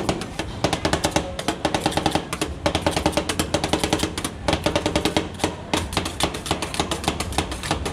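Two metal spatulas rapidly chopping and tapping ice cream on a steel cold plate, a fast clatter of sharp metallic strikes in runs with brief pauses.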